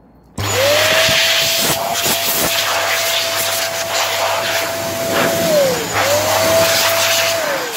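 IT Dusters CompuCleaner electric air duster running: its motor switches on about half a second in and spins up to a steady high whine under a loud rush of blown air. Near six seconds it winds down briefly, spins straight back up, and winds down again near the end.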